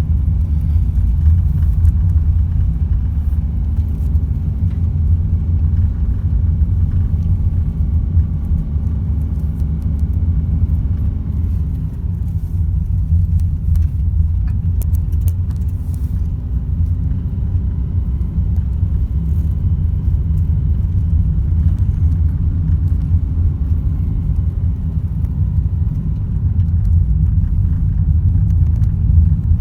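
Car being driven: a steady low rumble of road and engine noise, with faint engine tones that drift slowly in pitch.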